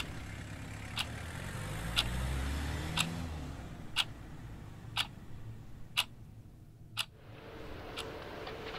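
Watch ticking, one sharp tick each second, over a low car rumble in the first few seconds; the ticks grow faint after about seven seconds.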